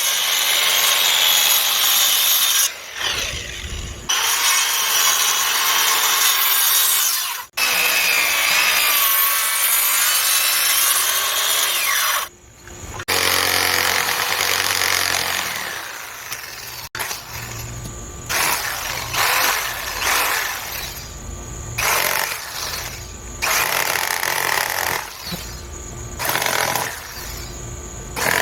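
Metabo HPT 7-1/4" corded circular saw with a 6,000 RPM motor, cutting wood in several long passes. Later come a string of shorter, quieter bursts about a second long.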